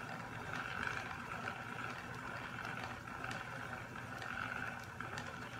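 Hand-cranked Knit Picks yarn ball winder whirring steadily as it winds yarn into a cake, pulling it off a spinning wooden umbrella swift.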